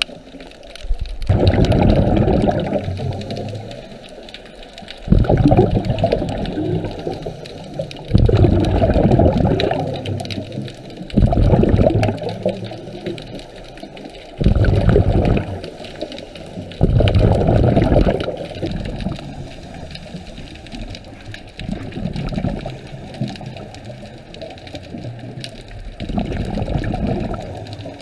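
Scuba diver's regulator heard underwater: exhaled air leaves in bubbling bursts of one to two seconds, repeating every few seconds, with quieter breathing gaps between.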